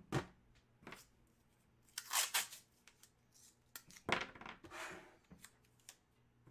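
Handling noise from a stiff white sheet being moved and set down by hand: a few short scraping swishes and light taps, spread out with gaps between.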